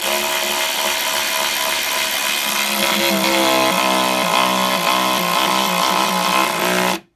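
KIMO 12-volt cordless electric ratchet running continuously as it drives a large bolt into wood. Its note turns uneven and pulsing from about three seconds in, and it stops suddenly after about seven seconds, with the bolt driven in flush.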